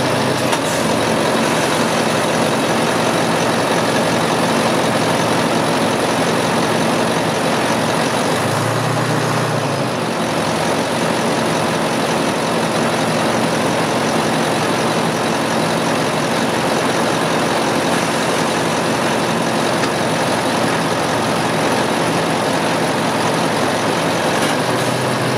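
Sentinel tractor's engine idling steadily, heard close up at the open engine bay.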